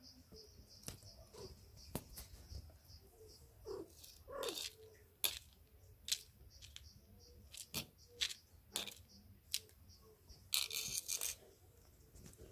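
A plastic lighter tapping and scraping on floor tiles: scattered sharp clicks, with a short scraping rustle near the end as the loudest sound. Behind it, a steady high chirping repeats about three times a second.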